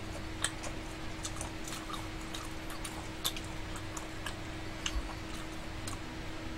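Faint, scattered clicks and small smacks of eating at a table, over a steady low hum.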